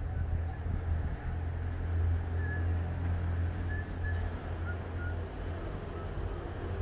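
Steady low rumble of outdoor background noise, with a few faint short chirps of small birds scattered through it.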